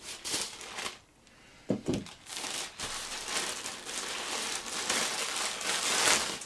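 Parcel packaging crinkling and rustling as it is torn open and handled, in short bursts at first, then almost continuously from about two seconds in.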